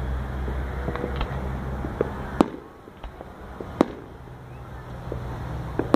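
Aerial fireworks going off: two sharp bangs, about two and a half and nearly four seconds in, among scattered smaller pops and crackles. A low steady rumble lies under the first half and drops away at the first big bang.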